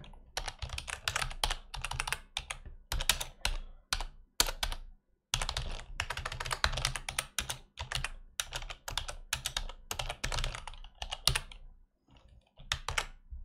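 Computer keyboard typing in quick runs of keystrokes, with a short pause about five seconds in and a longer one near the end before a last few key presses.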